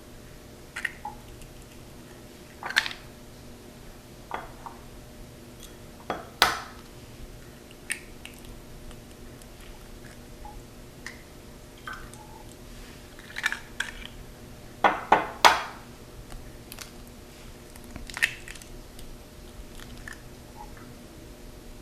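Eggshells cracking and clicking against a mixing bowl as egg whites are separated into it: scattered sharp cracks and taps, several in quick succession about two-thirds of the way through, over a steady low hum.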